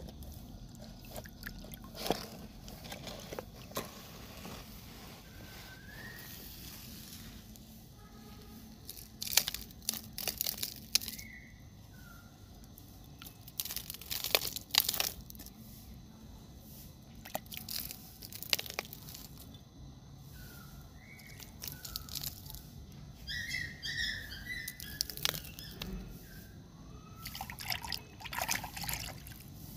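Sand being scooped and poured over a plastic toy crocodile, gritty scraping and pattering in repeated short bursts.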